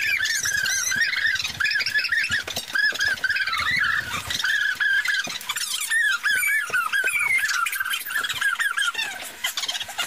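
Dog whining in a long run of high-pitched, rise-and-fall squeals, several a second, easing briefly about four seconds in and again near the end.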